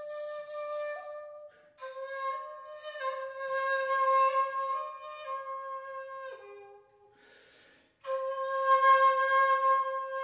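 Shakuhachi (Japanese end-blown bamboo flute) played slowly in long held notes with plenty of breath sound. Each note is sustained for several seconds and then steps down in pitch. The flute pauses for about a second and a half near the middle before starting a new held note.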